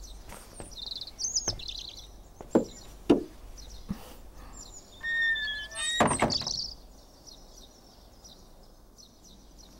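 Knocks and thumps from wooden doors, with a short creak about five seconds in followed by a louder knock as a door shuts. A few bird chirps come about a second in.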